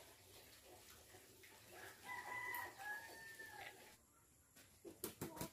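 A rooster crowing once, a single drawn-out call of about two seconds starting about two seconds in, followed by a few sharp knocks near the end.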